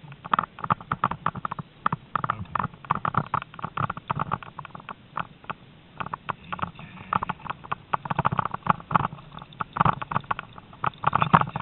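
Rapid, irregular rattling and knocking of a dog-drawn rig bouncing over rough grass as two harnessed malamutes pull it at a run.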